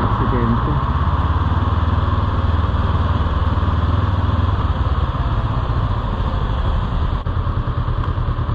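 Motorcycle engine running at a steady, even speed, with no revving.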